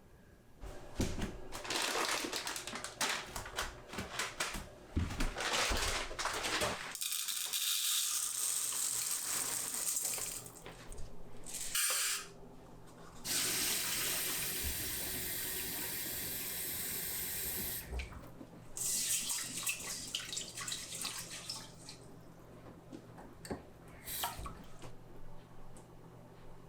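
Tap water running into a sink, splashing unevenly at first, then flowing steadily. It stops briefly about twelve seconds in, runs again, and stops after about eighteen seconds, followed by a few more seconds of splashing.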